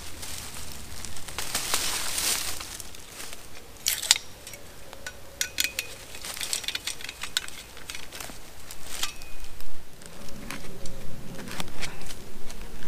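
Digging a small fire pit in hard clay ground: a tool scraping and knocking at the soil in irregular strokes.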